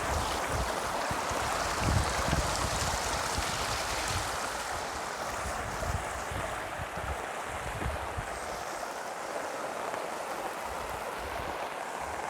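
Swollen monsoon runoff stream rushing steadily. Low wind buffets on the microphone come and go in the first part and ease off about two-thirds of the way through.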